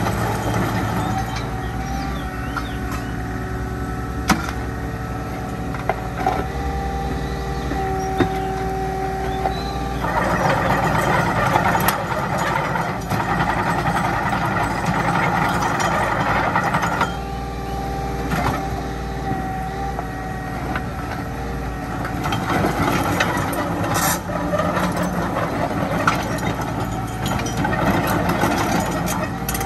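Kubota U30-5 mini excavator working: its diesel engine runs steadily while the machine swings, travels and moves its boom and arm, growing louder and rougher for several seconds in the middle. A few sharp metallic clanks stand out.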